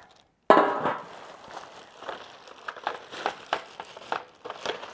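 Plastic wrap crinkling and rustling in irregular crackles as it is pulled off a roaster's rack, starting suddenly and loudly about half a second in.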